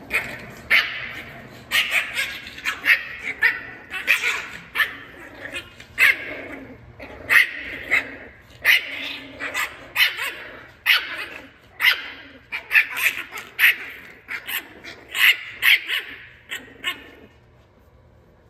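French bulldog puppies play-fighting, yapping out a long run of short, sharp barks and yips, often several in quick succession. The barking stops about a second before the end.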